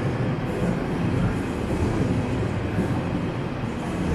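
Passenger train running with a steady rumble.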